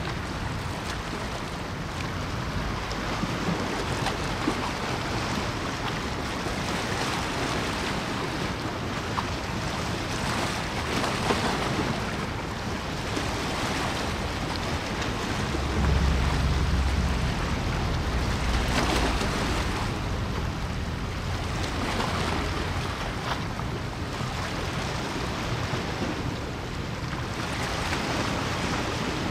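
Outdoor wind and water: a steady rush of wind with wind buffeting the microphone, heaviest in a gust about sixteen to nineteen seconds in.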